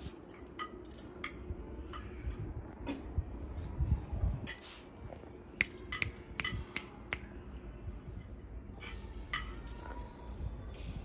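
Crickets chirping steadily at night, with a cluster of sharp clicks in the middle and a low, uneven rumble underneath.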